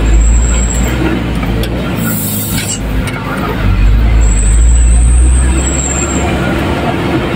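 Truck driving over a rough, rutted dirt road, heard from inside the cab: a steady low engine and road rumble with rattling. A short hiss comes about two seconds in, and a thin high whine comes and goes.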